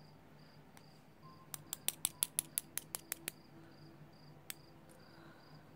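Small sharp metallic clicks as steel tweezers work pins out of the chambers of a disassembled pin tumbler lock: a quick run of about a dozen clicks, then one more a little later. A faint high-pitched chirp pulses about three times a second underneath.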